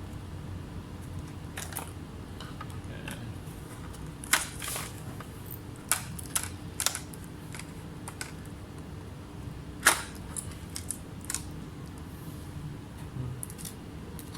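Small tools handled at a repair bench: scattered light clicks and taps, a few sharper ones about four and ten seconds in, over a steady low hum.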